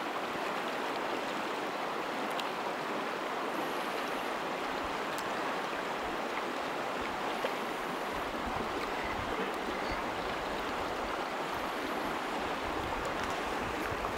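Fast-flowing mountain river rushing steadily over stones.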